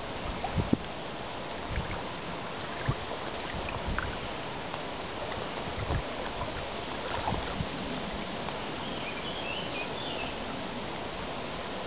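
Steady rush and lapping of river water close to the microphone, with a few small knocks and splashes in the first second.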